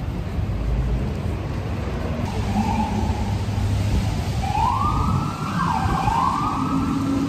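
Emergency vehicle siren wailing, starting faint about two and a half seconds in, then swooping up, down and up again in pitch, over a steady low rumble of street traffic.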